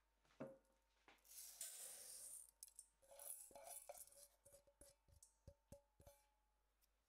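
Dry Japanese rice poured into a stainless steel bowl: a hissing rattle of grains in two spells, with the steel bowl ringing faintly. A few sharp ticks follow near the end.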